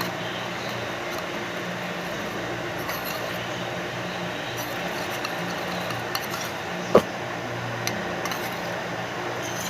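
A utensil clinking and tapping against a bowl while glue and water are stirred together, over a steady low hum. One sharper knock comes about seven seconds in.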